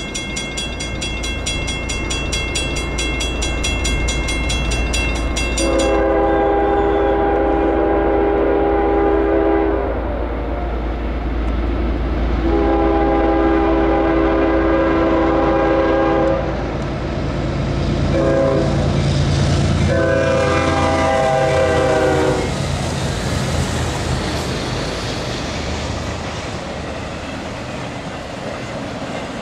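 Grade-crossing bell ringing rapidly for the first several seconds, then a GE ES40DC locomotive's air horn sounding the crossing signal: two long blasts, a short one and a final long one, over the locomotives' low engine rumble. Near the end the intermodal cars roll through the crossing with a clickety-clack.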